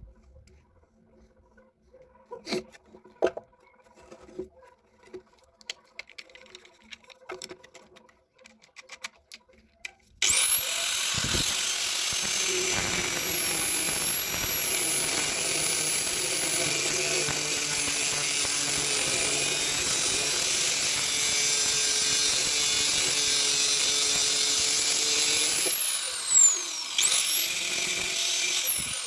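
Homemade geared drill press's electric motor switched on with an abrupt start and a high whine, running steadily for about fifteen seconds. It is then switched off, started again briefly, and winds down with a falling whine near the end. It is preceded by a few faint clicks and knocks.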